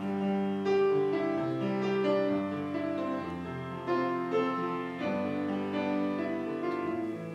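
Slow piano music: sustained notes and chords changing about once a second, with a few new notes struck over them.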